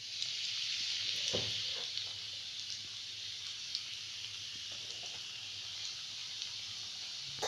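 Spices frying in hot oil in a kadhai, a tempering of cumin seeds, turmeric, bay leaves and red chilli powder, making a steady high sizzle. The sizzle starts suddenly, is loudest for the first couple of seconds, then settles, with one light knock a little over a second in.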